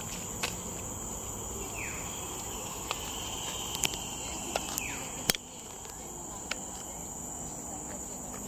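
Steady high-pitched drone of insects in tropical forest, with several sharp clicks scattered through and two short falling calls, about two seconds and five seconds in.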